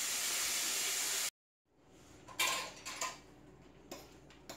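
Fish frying in hot oil, a steady sizzle that cuts off abruptly just over a second in. After a moment of silence, a few light clinks of dishes and utensils.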